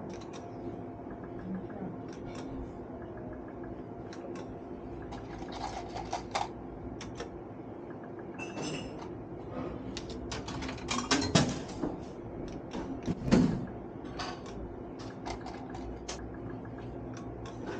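Bar slot machine being played: irregular clicks and taps, as of its buttons being pressed, over a steady electrical hum, with two louder knocks in the second half.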